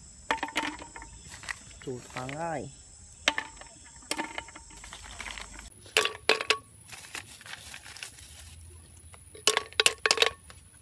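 Snail shells clicking and clinking against the inside of a clay pot and against each other as they are dropped in by hand, in several short clusters of sharp clicks.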